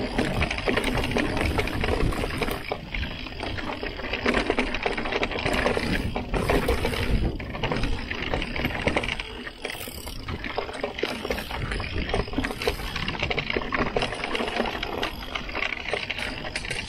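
Santa Cruz Heckler mountain bike ridden over a rough dirt and rock trail: a constant clatter and rattle of the bike over bumps, with tyre noise and a low rumble underneath.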